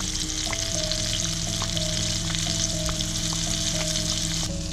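Battered fish fillets deep-frying in hot oil in a cast-iron pot: a steady sizzle with small scattered pops.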